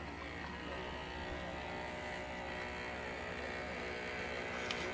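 Small electric motor of a radio-controlled model boat running at a steady speed, a faint, even buzz.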